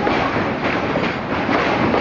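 Train passing on the line: a loud, steady rumble and rattle of wheels on the rails.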